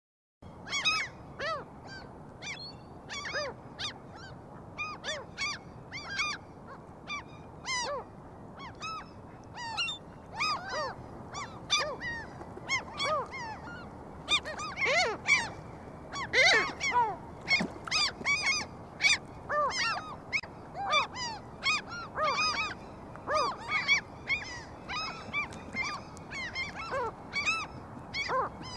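A flock of gulls calling: many short, harsh overlapping calls over a steady outdoor hiss, growing busier and louder from about halfway through.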